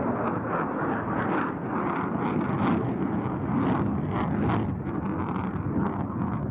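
Jet aircraft engine noise: a steady rumble with a few brief crackles.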